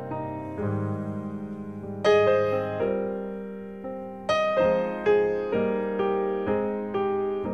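Background piano music: a slow solo piano piece of single notes and chords, each left to ring and fade, with louder chords struck about two seconds in and again about four seconds in.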